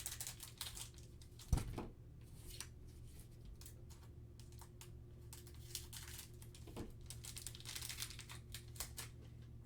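Crinkling and tearing of a trading-card pack wrapper as it is opened, with cards rustling in the hands, and one thump about a second and a half in.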